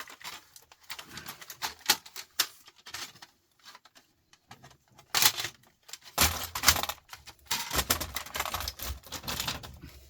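Plastic and metal parts of a CD changer being handled and pulled apart by hand: irregular clicks and clatter, a quieter lull near the middle, then busier, louder rattling and scraping in the second half.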